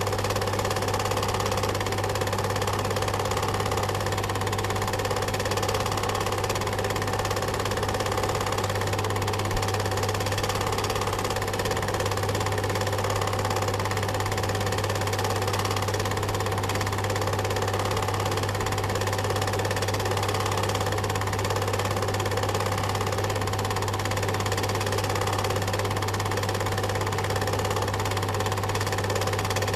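Film projector running steadily: a constant mechanical whirr with a strong low hum beneath it.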